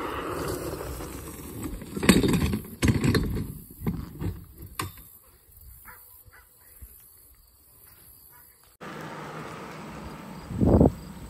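A GroundWork poly garden cart rolling down asphalt with wind on the microphone, then a cluster of loud thumps and rattles as it runs off the road and tips into the ditch. Near the end, one more loud thump comes over the rolling noise.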